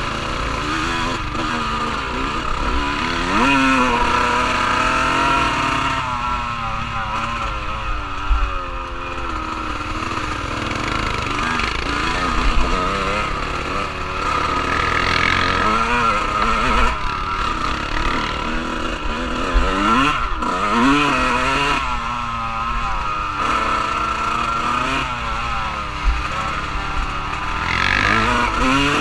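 Off-road vehicle engine running hard during a ride, revving up and down again and again, with a steady low rumble underneath.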